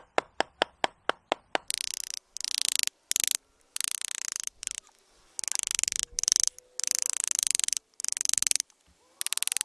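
Hand carving tools working the wood of a tree. First comes a quick run of sharp, evenly spaced taps, about five a second. From about two seconds in come repeated short bursts of scraping strokes with brief gaps between them.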